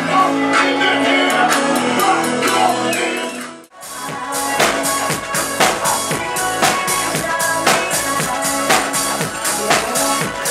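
Live drum kit played along with a DJ's dance track, loud club music with held melodic notes over the drums. The music cuts out sharply for a moment about three and a half seconds in, then the beat comes back with steady, regular drum hits.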